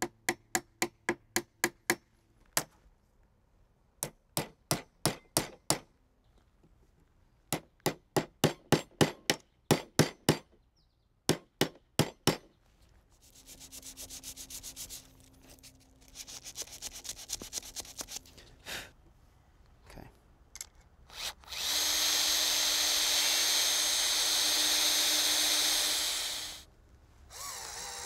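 A hammer tapping wood dowels into the old hinge screw holes in a door edge, in four quick runs of blows about three a second. Then sandpaper rubbing back and forth over the patched holes. Then a cordless drill driver runs steadily for about four seconds, the loudest sound of all, driving screws to fix the flipped hinge.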